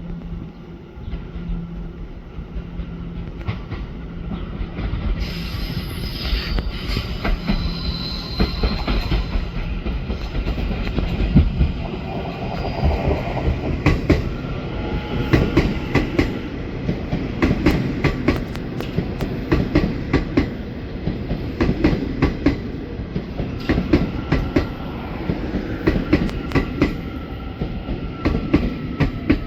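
Taiwan Railways EMU800 electric multiple unit running along the track, its wheels clacking over rail joints in a steady run of knocks that set in and grow louder a few seconds in, with a high hiss of wheel on rail.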